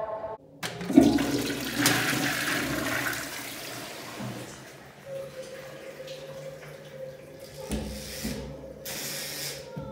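Rush of water in a small room, starting suddenly about a second in and slowly dying away, with a faint steady hum beneath.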